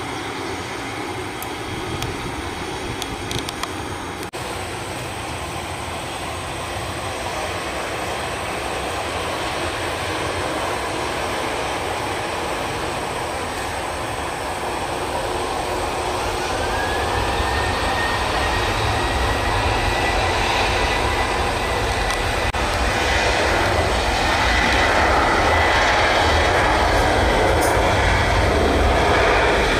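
Jet aircraft noise: for the first few seconds an Avro RJ85 (BAe 146) rolling on the runway after landing, then an Airbus A320-200 taxiing close by. The A320's jet engines are a steady rush, with a whine that rises about halfway through and then holds, growing louder toward the end.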